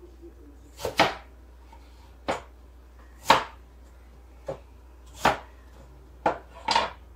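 Kitchen knife cutting peeled raw potatoes on a wooden cutting board: about seven separate cuts, each ending in a sharp knock of the blade on the board, roughly one a second.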